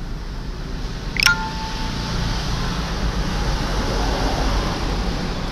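A sharp click about a second in, followed by a short ringing chime that steps down in pitch and fades over about a second, over a steady background hum and hiss.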